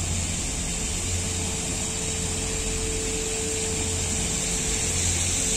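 Steady rushing noise of a wet city centre in the rain: traffic and water spray from fountains and wet ground, with a steady hum.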